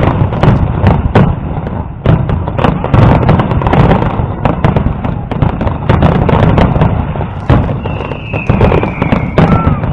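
Fireworks display with aerial shells bursting in a dense barrage, many bangs and crackles in quick succession. A falling whistle comes near the end.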